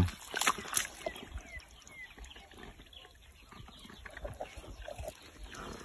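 Hands digging and squelching in wet mud and shallow water, with two sharper wet slaps in the first second, then quieter sloshing and sucking sounds.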